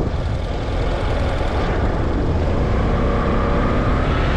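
Steady rumble of a car driving along a road, tyre and engine noise, with a faint hum rising into it about halfway through.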